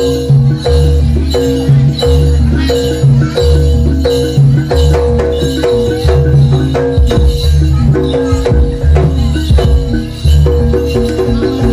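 Live Javanese jaranan ensemble playing a repeating gamelan-style pattern: pitched metal percussion notes over a steady beat of heavy drum strokes.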